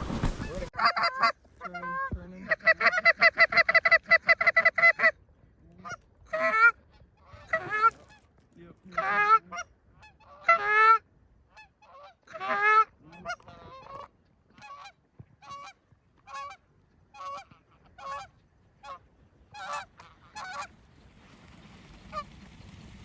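Geese honking and clucking: a quick, even run of clucks, then single rising honks about one a second that grow fainter and stop near the end.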